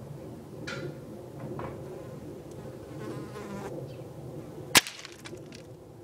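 A single sharp gunshot a little before the end, much louder than anything else, with a brief ring after it: the shot fired at the hanging dead bird.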